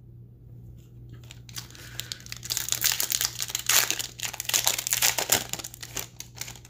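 A foil Magic: The Gathering booster pack wrapper being torn open and crinkled by hand. It makes a dense, crackling rustle that starts about a second and a half in, is loudest through the middle, and thins out near the end.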